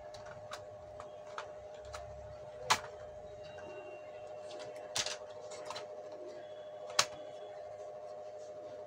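Hard plastic clicks and knocks as the Mitsubishi FX3U-80M PLC's I/O card, CPU card and case parts are handled and pressed together. There are a few light ticks, then three sharper clicks about two seconds apart. A steady faint hum runs underneath.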